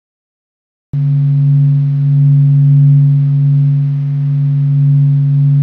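Space sonification played as the 'sound' of a planet or the sun: a steady deep hum of a few held low tones over a faint hiss, starting suddenly about a second in.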